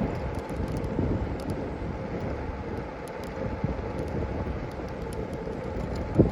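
Wind buffeting a body-mounted phone's microphone while riding, over a steady low rumble, with faint ticks and one short knock near the end.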